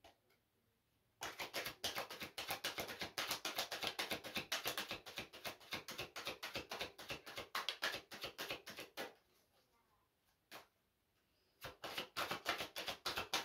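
A deck of oracle cards being shuffled hand over hand: a fast run of card-on-card slaps for about eight seconds, a pause broken by one tap, then shuffling again near the end.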